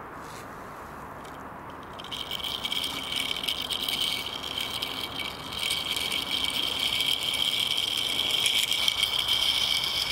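Toy car pushed by hand over rough ground, its wheels and body rattling and clicking fast and continuously. It starts about two seconds in.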